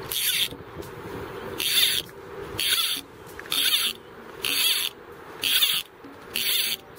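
Fly reel's click ratchet buzzing in short pulls, about one a second, seven times, as fly line is pulled off the reel by hand.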